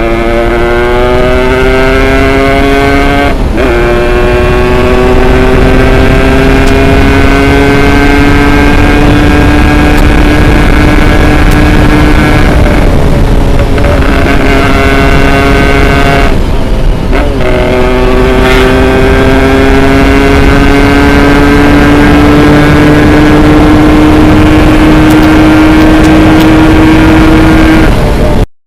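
Modified Yamaha RX Special 115 two-stroke single-cylinder engine running hard under way, its revs climbing slowly through each gear, with brief drops for gear changes at about three and a half seconds, around thirteen seconds and about seventeen seconds. The sound cuts off abruptly near the end.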